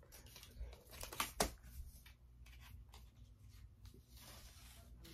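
Faint rustling and light taps as a new iPad is handled and its protective wrap is peeled back, with a sharper click about a second and a half in.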